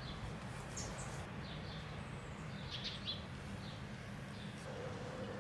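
Small birds chirping here and there, short high calls, over a steady low outdoor background rumble.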